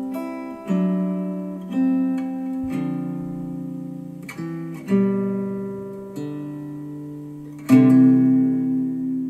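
Acoustic guitar music: slow strummed chords, about six of them, each left to ring and fade, the loudest near the end. It is played back through Elac DBR62 bookshelf speakers driven by a Rotel A12 amplifier.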